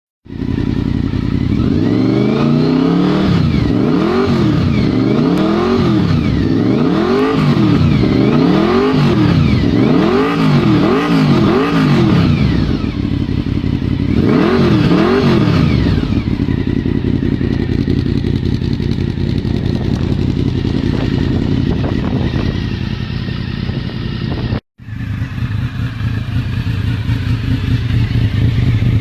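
Honda VFR750's V4 engine being blipped on the throttle, about ten quick revs that each rise and fall, then settling to a steady idle. The sound cuts out for an instant near the end, and the idle resumes.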